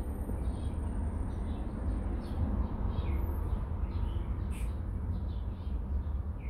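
Small birds chirping over and over in the background, over a steady low rumble.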